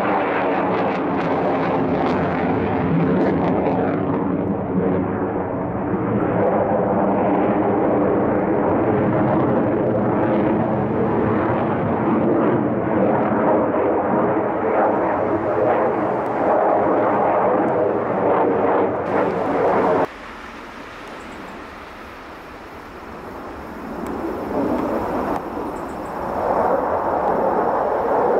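Mitsubishi F-2 fighter's turbofan jet engine roaring loud and steady as the jet manoeuvres, with a droning layered tone. About two-thirds of the way through it cuts off suddenly to a quieter, more distant jet rumble that swells again near the end.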